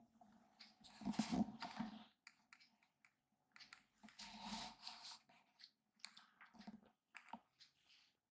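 Kittens scrabbling and rustling at close range: two louder bursts of scratchy rustling, about a second in and about four seconds in, with scattered small clicks and taps between.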